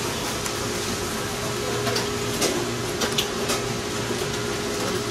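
Steady indoor hum and hiss with a few scattered clicks and rustles from a camera being carried.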